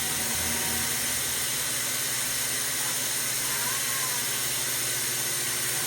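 Steady hiss of blowing air over a low hum, typical of a hot-air plastic welding gun running while PVDF is welded.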